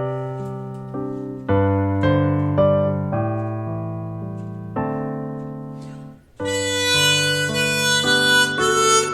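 Piano plays a slow introduction in single notes that fade after each strike. About six seconds in, after a short break, a harmonica comes in playing the melody in held notes over the piano accompaniment.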